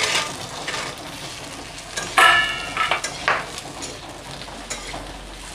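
Cubed raw potatoes sizzling as they fry in hot vegetable oil in a metal kadai, stirred with a steel spatula that scrapes and clatters against the pan. About two seconds in, a short metallic ring.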